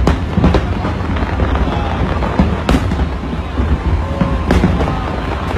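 New Year's Eve fireworks display going off: a few sharp bangs, two close together at the start and more spaced out later, over a continuous deep rumble of shells bursting.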